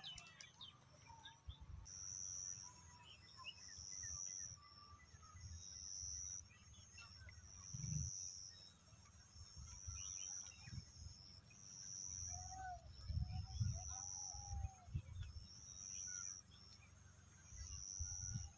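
Quiet rural pondside ambience: a high, thin chirp repeats about once a second, with a few faint bird calls scattered through, over low, uneven rumbles of wind on the microphone.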